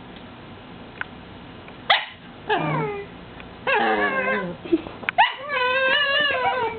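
A dog whining and yowling in a series of drawn-out, pitch-sliding calls, about four of them, the last the longest and wavering up and down.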